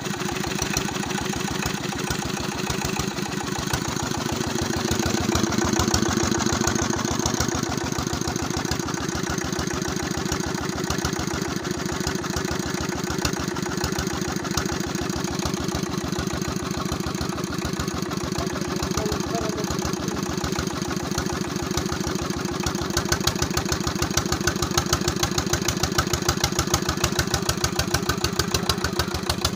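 16 HP Peter diesel engine running steadily in an even, rapid beat of firing pulses, belted to a water pump. The beat shifts a little in pitch about five seconds in and grows slightly louder near the end.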